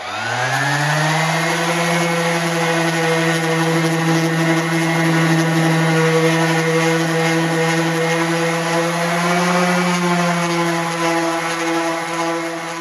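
Electric random-orbit palm sander with 220-grit paper starting up, its whine rising quickly at the start and then running steadily as it sands the edge of a wooden longboard deck.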